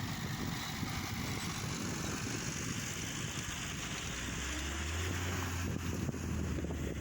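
Engine of a homemade rotary tiller running, with wind buffeting the microphone; a steady low hum comes in about halfway through.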